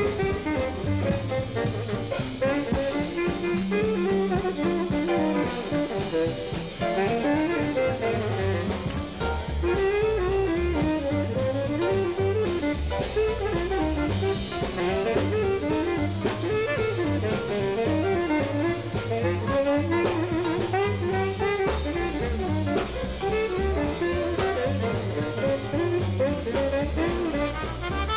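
Dixieland jazz band playing live, with a tenor saxophone soloing in flowing runs over a walking string bass and drum kit.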